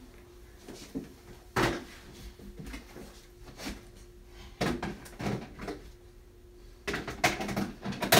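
Knocks and clatter of makeup containers and tools being gathered and set down: one knock about a second and a half in, a cluster around five seconds, and a louder cluster near the end. A faint steady hum runs beneath.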